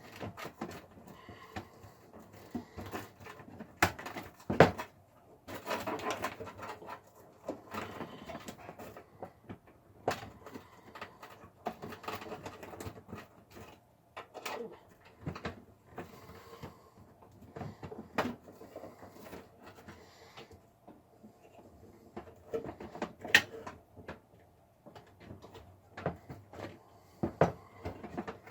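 Irregular clicks, knocks and rustling of power-supply cables and plastic Molex connectors being handled and fitted inside a computer case, with the sharpest knocks about four to five seconds in and twice near the end.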